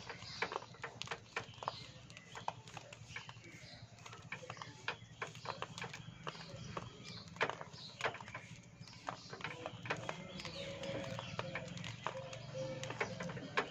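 Two budgerigars biting and crunching a hand-held biscuit: a stream of quick, irregular beak clicks and crumbs cracking.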